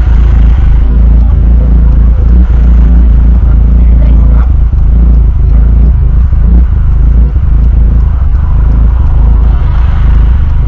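Car engine idling, heard inside the cabin: a steady, loud low rumble.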